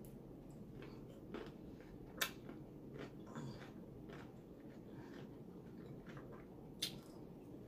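A person eating a seafood boil: scattered wet smacks and clicks of chewing, the sharpest a little over two seconds in and another near the end, over a low steady hum.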